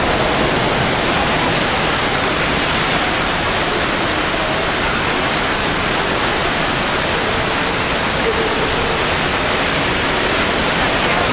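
Steady, loud rush of falling water from an indoor fountain, with a faint murmur of voices underneath.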